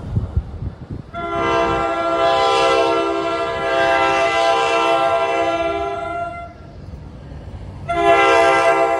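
NJ Transit train horn sounding a multi-tone chord: one long blast of about five seconds, then a second blast beginning near the end, over the low rumble of the train.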